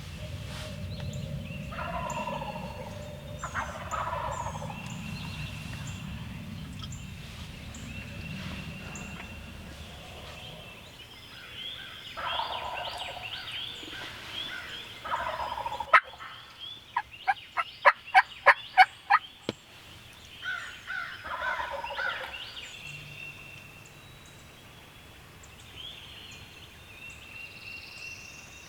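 Wild turkey gobbling, several gobbles in a row, answered by a loud, rapid run of about eight sharp notes in the middle. Other birds chirp faintly throughout, and a low rumble sits under the first third.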